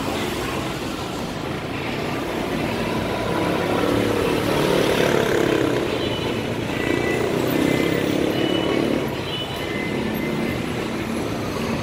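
Busy city road traffic, with a bus engine passing close below and growing louder for several seconds in the middle before easing off.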